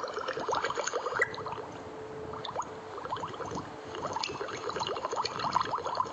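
Water bubbling and gurgling: a steady, dense stream of small bubbles.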